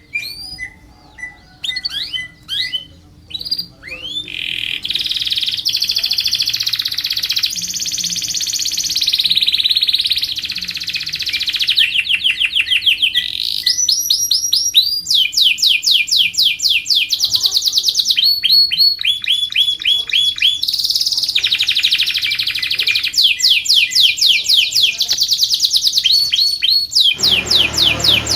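Domestic canary singing: scattered short chirps for the first few seconds, then a long unbroken song of fast trills and rolls, each made of rapidly repeated high notes, switching to a new trill every second or two.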